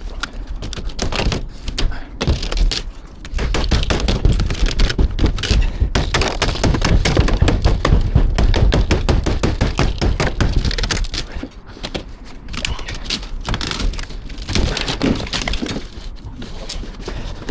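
Brittle old conservatory roof being broken up and pulled down: a dense run of cracks, snaps and thuds, heaviest from about four to eleven seconds in.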